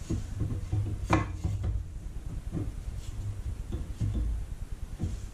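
Irregular clunks, scraping and rattling of metal parts as a tubular exhaust header is worked into place under a car, with one sharper clank about a second in.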